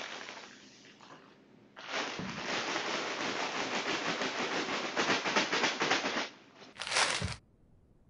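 Potato chip bag being crinkled and shaken, a loud crackling rustle picked up by a Jabra Speak 710 speakerphone's microphone for about four seconds, with one more short burst. Near the end it cuts off to a faint hiss where the audio switches to the Polycom VoxBox, whose noise blocking filters out the bag noise.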